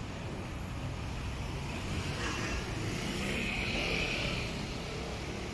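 Slow city street traffic: vehicle engines and tyre noise as a steady low rumble, with a hissing swell that rises about two seconds in and dies away before the end.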